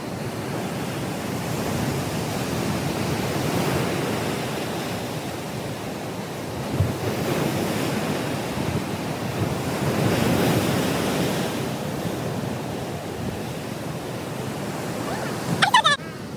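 Heavy ocean surf breaking among rocks and sea stacks: a steady rushing that swells and ebbs, with wind. A short pitched sound, the loudest moment, cuts in near the end.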